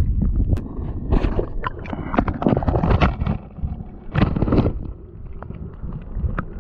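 Muffled water noise and low rumble from a submerged camera, with frequent clicks and knocks as it moves about, and louder rushes of water around one to three seconds in and again past four seconds.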